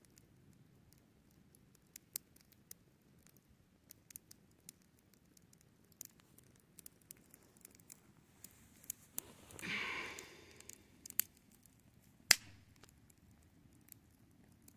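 Wood campfire crackling, with scattered sharp pops, the loudest about twelve seconds in. Around ten seconds in, a brief hissing swell lasts about a second.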